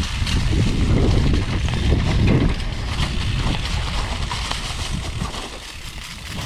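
Wind buffeting a helmet-mounted camera's microphone during a downhill mountain-bike run, with the rumble and knocks of the bike over rough dirt track; louder in the first part, easing off near the end.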